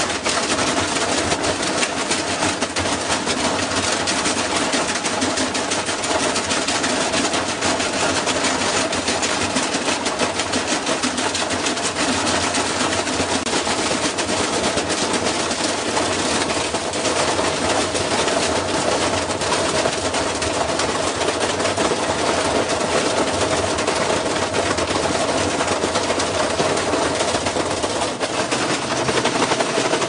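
Front-loading washing machine spinning hard out of balance, its cabinet shaking and banging in a loud, continuous rapid clatter as the door flaps and the metal panels rattle and break away. The machine is destroying itself.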